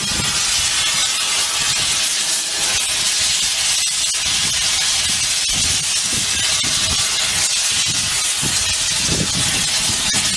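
Oxy-fuel rosebud heating torch burning with a steady loud hiss and a low fluttering rumble, its flame played over frozen rust and dirt in a steam locomotive's smokebox to thaw it; a few sharp clicks cut through.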